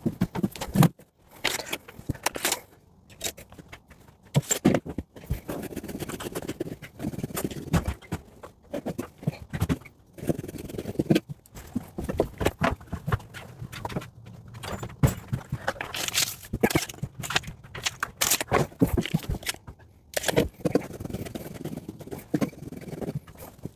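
Irregular knocks, scrapes and rustling as Rockwool stone-wool insulation batts are handled and cut to size for the wall cavities.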